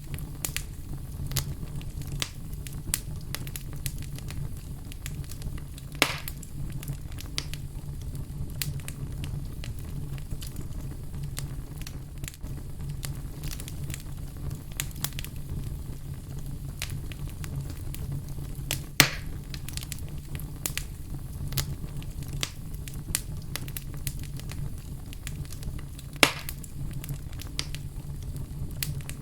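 Fireplace fire crackling, with many small snaps over a steady low rumble. Three louder pops stand out, the last near the end.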